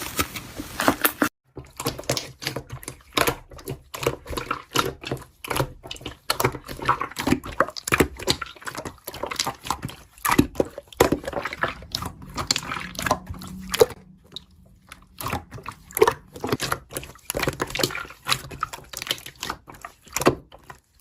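Slime being squished, stretched and pressed by hand: a quick uneven run of sticky wet clicks and pops, with a few short pauses.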